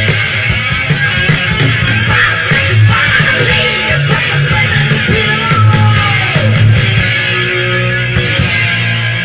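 Four-piece rock band playing live: two electric guitars, bass and drums. A lead line bends in pitch about the middle of the passage.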